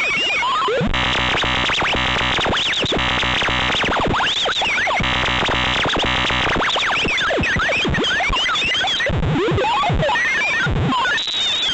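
Synthesized emergency alert alarm: many overlapping tones glide up and down at once, broken by three stretches of harsh buzzing in the first seven seconds.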